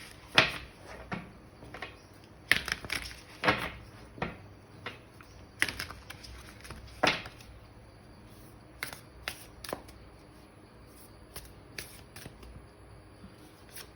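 Sacred Traveler oracle cards being shuffled and handled: irregular sharp snaps and taps of the cards, closer together in the first half and sparser after about eight seconds.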